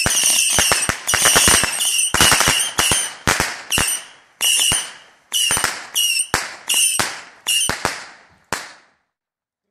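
Ground-launched consumer firework going off: a rapid series of sharp bangs and crackles, a dozen or so, each trailing off briefly, thinning out and stopping about a second before the end.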